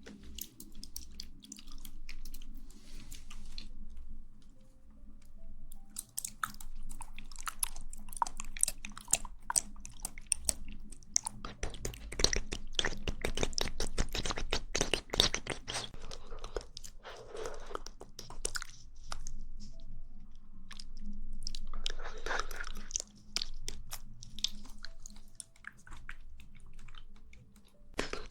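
Close-miked chewing of jelly: wet clicks and smacks from the mouth, densest about halfway through, with a couple of longer airy mouth sounds later on.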